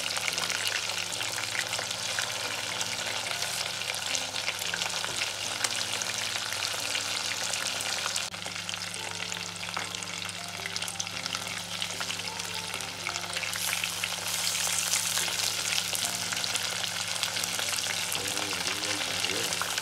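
Masala-coated chicken pieces sizzling and crackling steadily as they shallow-fry in hot oil in a non-stick pan.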